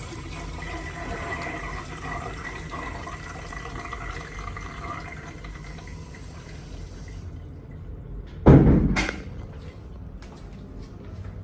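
Commercial restroom toilet or urinal flush, water rushing with a steady whistling hiss as it runs, cutting off about seven seconds in. About a second later comes a loud sudden thump followed by a second sharp knock.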